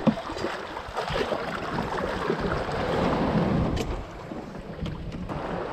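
Wind buffeting the microphone over small waves washing in the shallows, with a few light clicks.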